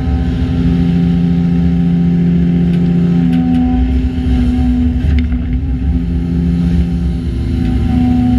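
Hyundai Robex LC220-9A excavator's diesel engine and hydraulics working steadily under load. The engine note swells and eases several times as the hydraulics take up and release the load.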